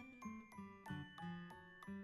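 Background music: a quick run of struck, ringing notes over a bass line in a bouncy rhythm.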